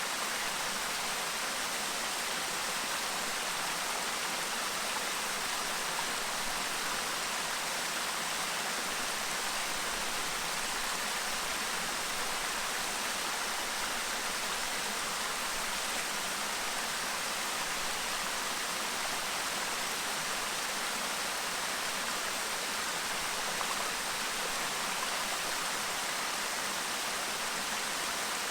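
Clear mountain stream babbling over rocks: a steady, even rush of running water that does not change.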